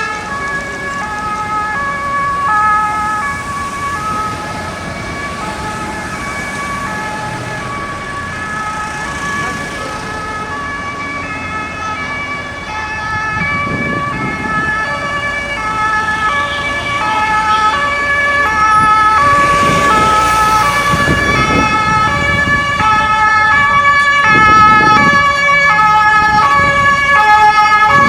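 Several German two-tone emergency vehicle sirens sounding at once, each alternating between two pitches in the tatü-tata pattern. They grow louder in the second half, with rushes of engine and road noise as vehicles pass.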